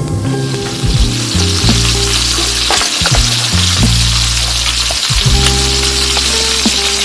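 Food sizzling in a hot pan: a steady frying hiss over background music.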